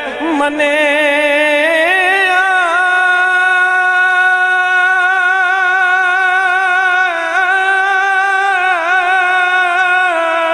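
A man singing a Punjabi devotional verse, drawing out one long held note with a wavering vibrato that steps up in pitch about two seconds in, unaccompanied and amplified through a handheld microphone.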